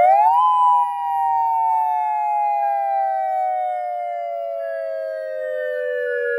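Homemade electronic dual-tone siren sounding its wail signal through two 200-watt speakers at half power: two close tones finish a quick rise in pitch about half a second in, then glide slowly down together.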